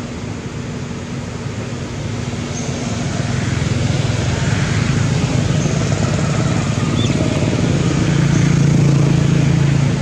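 A motor vehicle's engine running with a steady low hum that grows louder over several seconds and is loudest near the end.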